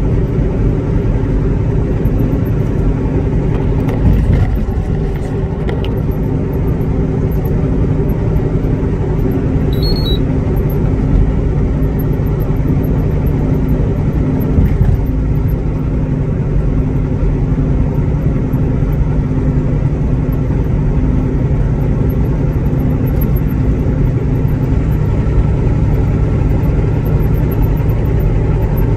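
Truck engine and tyres running steadily at highway speed, a continuous low drone heard from inside the cab.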